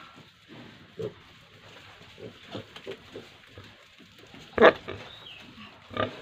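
Pigs grunting in short, repeated calls, with one much louder call about two-thirds of the way through and another near the end.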